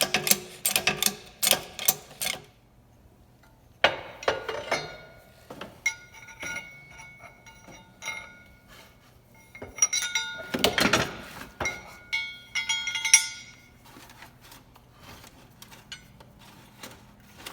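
Metal tools and steel parts clinking and ringing against each other while a rear axle is put back together. It opens with a quick run of sharp clicks, followed by scattered metallic knocks that ring briefly.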